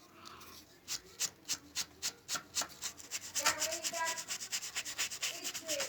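Sandpaper rubbed by hand over wood in quick back-and-forth strokes, sanding glued-in wood plugs flush. The strokes come about three a second at first and speed up to about twice that pace a little past halfway.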